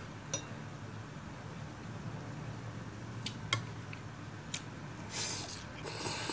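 Wooden chopsticks and a metal spoon clinking against a ceramic bowl a few times while noodles are picked up, with two short noisy swishes near the end, over a steady low background hum.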